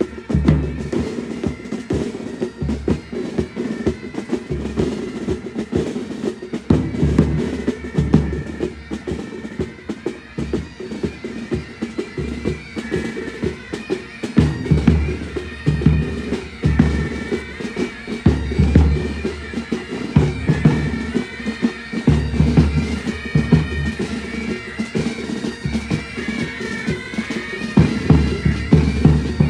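Military pipe band playing: bagpipes sound a melody over their steady drone, with drums beating time and heavy bass-drum strokes.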